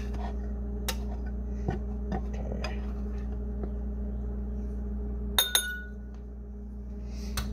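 Kitchen utensils and dishes being handled: scattered light clicks and knocks, then one sharp ringing clink about five and a half seconds in, over a steady low hum.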